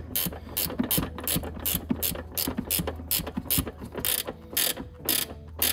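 Ratcheting 10 mm wrench clicking in quick runs of several clicks a second as it tightens a 10 mm nut down onto a plastic air box.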